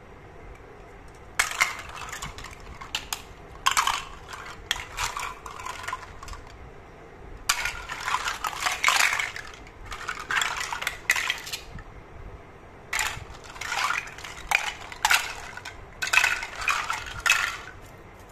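Hard plastic toy fruit pieces clicking and clattering against each other and a plastic bowl as they are handled and set down. The clatter comes in several spells with short pauses between.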